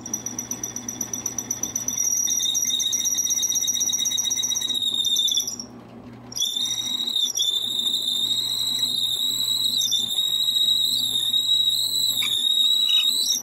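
Floor-mounted drill press running with a steady hum while its long 1/2-inch bit bores a deep hole through a maple block, the bit squealing high-pitched in the cut. The squeal drops away briefly about halfway, then returns and stops suddenly at the end.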